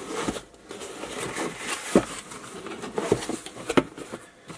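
A box being opened and its packaging handled: rustling and crinkling, with a few sharp knocks and clicks, the loudest about two seconds in and near the end.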